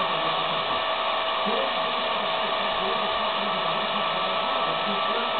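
Handheld hair dryer running steadily: an even rush of blown air with a constant motor whine.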